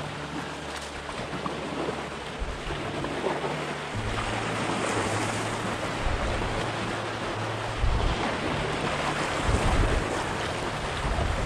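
Shallow river water rushing and babbling over riffles around a canoe as it drifts and is paddled downstream.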